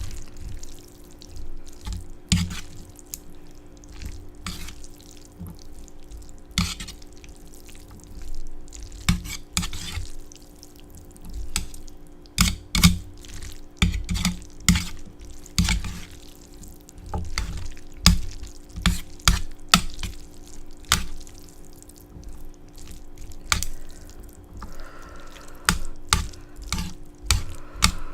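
Close-miked eating sounds: wet chewing and mouth noises with many sharp, irregular clicks, over a faint steady hum.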